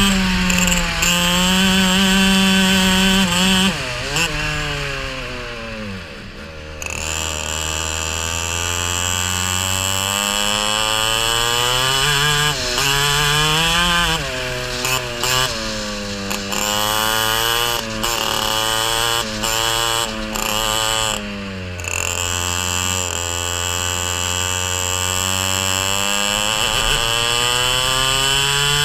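Racing kart engine at full throttle, its note climbing steadily along the straights and dropping away when the driver lifts for corners. There are deep drops about four to seven seconds in and again around twenty-one seconds, each followed by a long rising pull.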